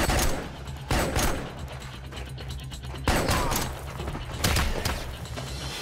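Gunfire in short volleys a second or more apart, over a low, steady film score.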